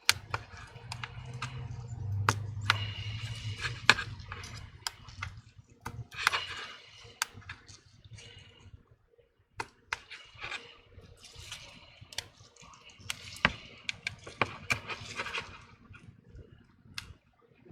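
Metal pry tool scraping and clicking against an iPhone 12's frame and cracked screen glass as it is worked under the display to break the adhesive: irregular sharp clicks and scratchy scraping, with a low hum in the first few seconds.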